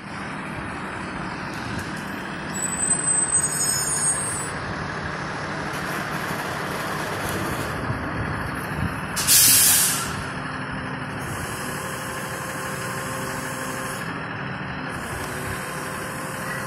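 Rear-loading garbage truck's diesel engine running steadily, with a wavering high squeal a few seconds in. About nine seconds in comes a short, loud air-brake hiss.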